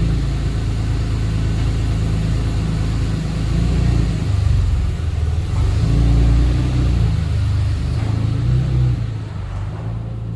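Porsche 997 911's flat-six engine running as the car is driven, its note rising and falling with the revs and easing off near the end. The drive warms the engine and oil up ahead of an oil change.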